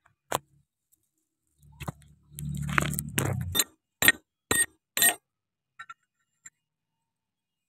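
A steel socket wrench working on the hydraulic tank drain plug of a mini excavator: a series of sharp, ringing metallic clinks, about one every half second, after a short low rumble of handling in the middle.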